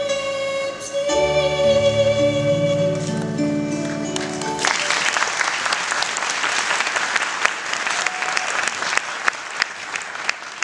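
A girl singing and strumming an acoustic guitar ends a song on a long held note. About four and a half seconds in, the music stops and an audience applauds.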